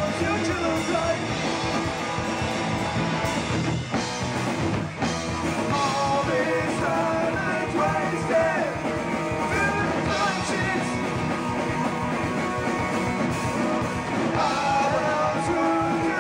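Skate-punk band playing live: distorted electric guitars, bass guitar and drum kit, with sung lead vocals.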